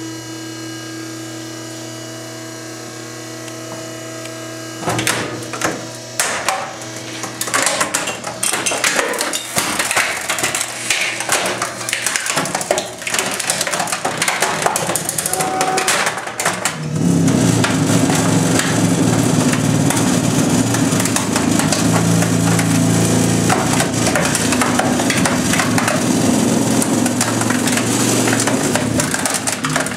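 A trash compactor's motor runs with a steady hum as its ram comes down on a Compaq Presario computer tower. From about five seconds in the plastic case cracks and snaps over and over, and from about seventeen seconds the machine's hum grows louder under the load while the case and metal chassis crunch flat.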